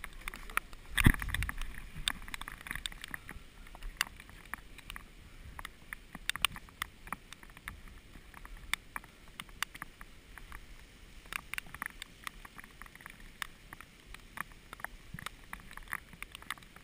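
Scattered small clicks and rustles of a player moving through wet forest undergrowth, with a heavier knock about a second in.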